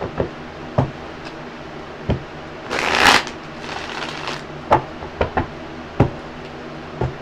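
A deck of tarot cards being shuffled by hand: a string of sharp snaps and taps, with a longer rustling riffle about three seconds in.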